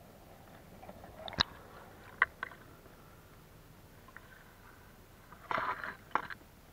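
A glass jar being dipped into pond water and filled: a few sharp clicks and knocks, then a short splash of water near the end as the jar is lifted, followed by one more click.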